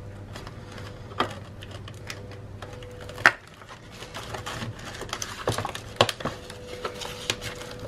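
Cardboard and plastic doll packaging being handled as a doll is worked loose from its box backing: a scatter of small clicks and taps, with one sharper click about three seconds in and a busier run of taps near the end, over a faint steady hum.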